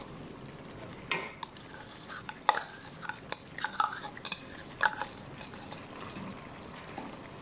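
Plastic spatula scraping grated onion out of a glass container into a nonstick pan of cooked beef and stirring it in: scattered sharp taps and scrapes against the container and the pan, the loudest about a second in, at two and a half seconds and near five seconds.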